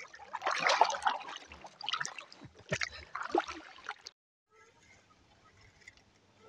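Paddle strokes in calm lake water from a canoe: the blade dipping and pulling with irregular splashes and drips, about one stroke a second. The sound drops suddenly to faint hiss about four seconds in.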